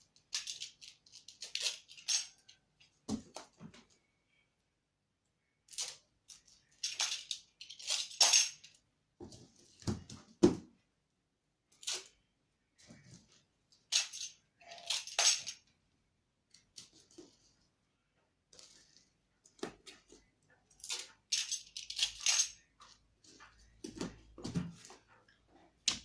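Packing noises: packaging material rustling and crinkling in short bursts every second or two, with a few dull knocks as items are handled.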